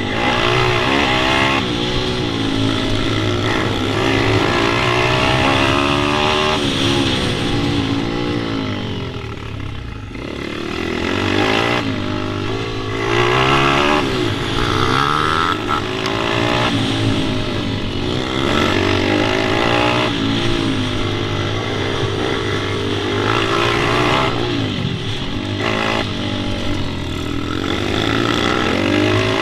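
Pit bike engine running hard around a track, its pitch rising and falling again and again as the throttle is opened and closed through the corners, with a brief easing off about a third of the way in.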